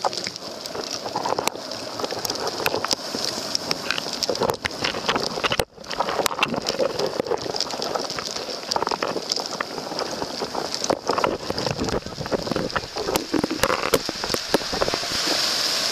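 A mass of hermit crabs crawling over one another, their shells clicking and clattering against each other and the rocks in a dense, rain-like patter, over a steady high hiss.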